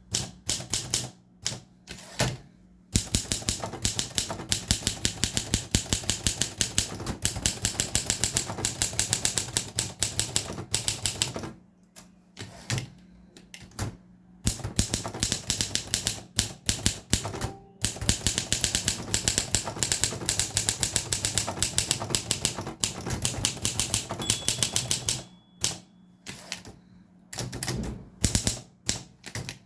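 Olympia SM3 manual portable typewriter being typed on: fast runs of sharp key strikes, several a second, broken by short pauses, with slower scattered strikes near the end.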